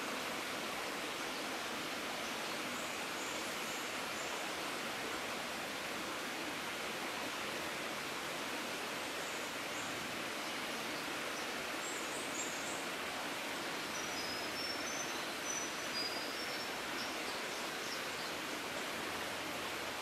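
Steady rainforest ambience: an even rushing hiss with a few faint, high bird chirps a few seconds in and several more in the second half.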